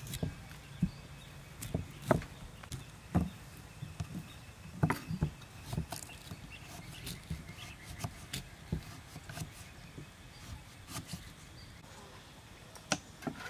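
Kitchen knives chopping broccoli and carrot on wooden chopping boards: short, irregular knocks of the blade on the wood, about one or two a second.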